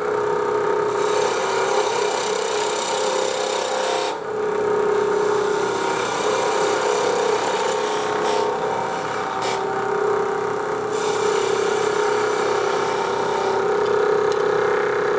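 Spindle gouge cutting into a spinning wood blank on a lathe: a continuous cutting noise of shavings being peeled off over the steady hum of the running lathe. The cutting noise strengthens and eases a few times as the tool is worked in.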